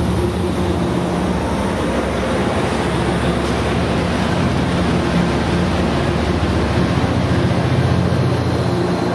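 An Amtrak F59PHI diesel locomotive's EMD 12-cylinder 710 engine running steadily at close range, a deep even drone that swells slightly near the end.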